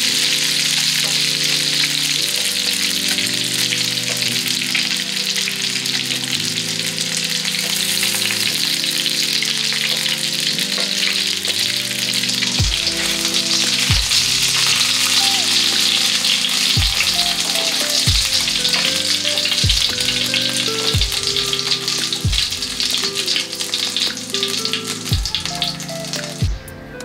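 Hot oil sizzling steadily as chicken meatballs (kofta) shallow-fry in a pan, over background music with a low, regular beat. The sizzle cuts off just before the end.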